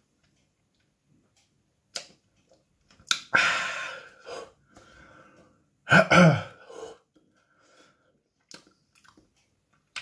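A man's mouth and breath sounds while he eats a superhot chili pepper. There is a click about two seconds in and a long, forceful breath out a second later. About six seconds in come two quick coughs, the loudest sounds.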